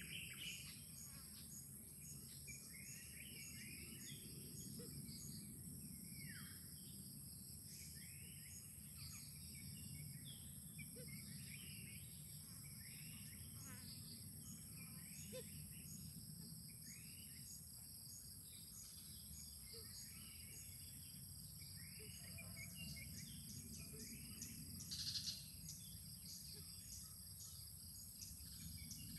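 Faint outdoor ambience: scattered small-bird chirps over a steady, pulsing high insect buzz and a low rumble, with one brief louder sound near the end.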